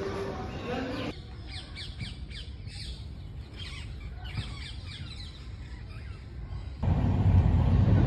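Birds calling in trees: a busy run of short, falling squawks and chirps. Near the end the loud low rumble of a moving train, heard from on board, cuts in suddenly.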